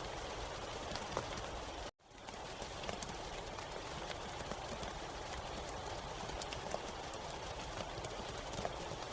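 Steady rain with scattered sharp drop ticks. About two seconds in it cuts out to silence for an instant and then fades back in.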